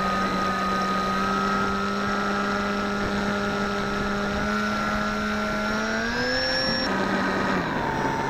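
Electric motor and pusher propeller of a Bixler v1.1 foam RC plane, heard from on board: a steady drone that rises in pitch about six seconds in as the throttle is opened, then drops lower shortly before the end as it is throttled back.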